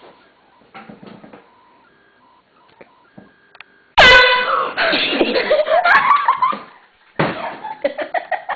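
Air horn blasted suddenly about four seconds in, a loud steady blare, followed by a person's startled yelling; then laughter near the end.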